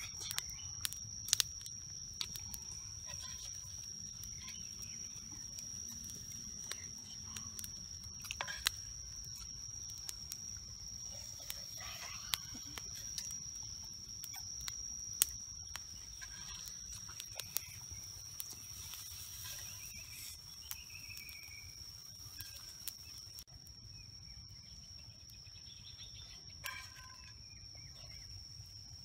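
Scattered sharp clicks of a spoon against oyster shells on a grill, over a continuous high-pitched insect drone.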